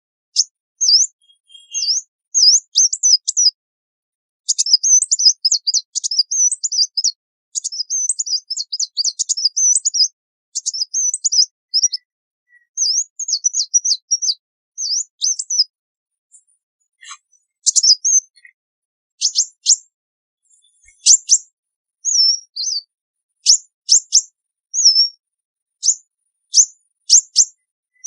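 Sunbird singing: rapid, high-pitched twittering chirps that run in a dense stream for much of the first half, then sparser, sharp quick notes and short warbled phrases, with silence between them and no background noise.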